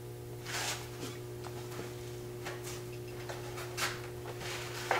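Wood lathe running at around 3000 RPM with a steady hum, and a few brief faint hisses as the spindle gouge begins a V cut in the spinning alder blank.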